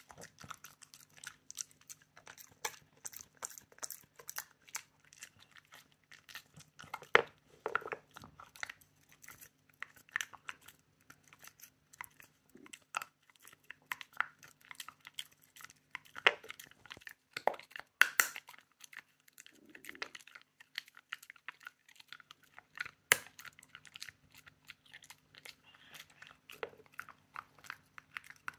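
Shiba Inu chewing a dry treat close by, a run of crisp crunches and wet chewing clicks, with a few louder crunches along the way.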